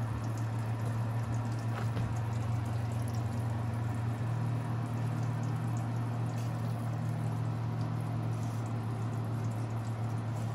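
Hot frying fat (coconut oil, bacon grease and butter) sizzling and crackling steadily in a cast-iron skillet, with small pops here and there over a steady low hum.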